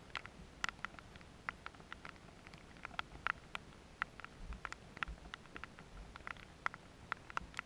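Rain pattering: sharp, irregular ticks of drops striking close to the microphone, several a second, with a faint low rumble a little past the middle.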